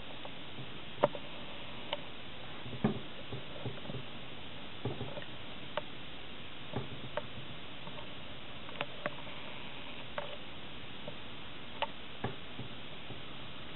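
Light clicks and ticks, about a dozen at uneven intervals, over a steady background hiss.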